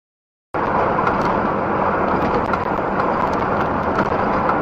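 Silence, then about half a second in, steady engine and road noise inside a moving truck's cab starts abruptly, with tyres running on a wet road and a low engine hum underneath.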